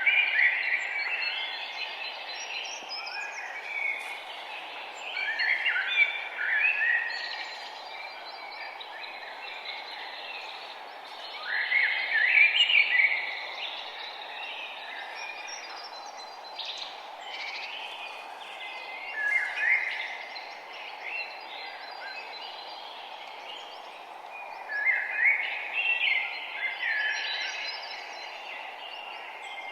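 Songbirds singing outdoors in short warbling phrases a few seconds apart, the loudest about twelve seconds in, over a steady background hiss of environmental noise.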